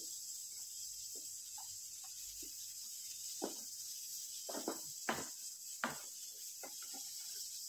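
Spatula scraping and knocking against a non-stick frying pan while stirring a chopped vegetable mix. There are several short strokes in the second half over a steady faint hiss.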